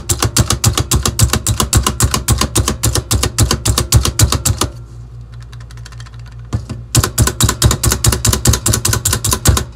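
Hand-operated plunger food chopper being pumped fast, its spring-loaded blades chopping onion inside a plastic bowl with a rapid run of plastic clacks. The clacking stops about halfway through, then starts again about 7 s in and runs until just before the end.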